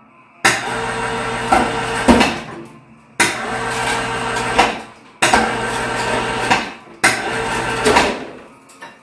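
Electric chain hoist lifting the front of a garden tractor in four short runs. Each run starts with a sudden clunk, hums steadily for one and a half to two seconds, and stops with a clunk as the load jolts on the chain.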